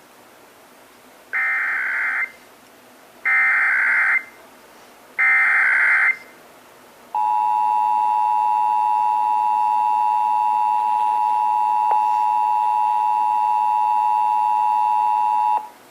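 Emergency Alert System required monthly test: three one-second bursts of SAME digital header data with short gaps between them, followed by the EAS two-tone attention signal, a steady two-note tone held for about eight and a half seconds before it cuts off.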